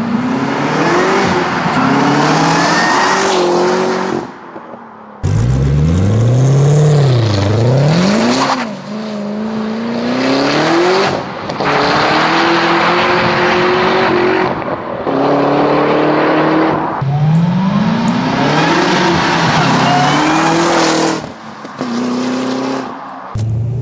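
Supercharged 6.2-litre V8 of a 2009-15 Cadillac CTS-V coupe breathing through an aftermarket stainless steel cat-back exhaust, revving and accelerating hard. It plays as a series of short takes: the pitch climbs and falls with engine speed, and each take cuts off abruptly, with one sharp rev-up and drop about five seconds in.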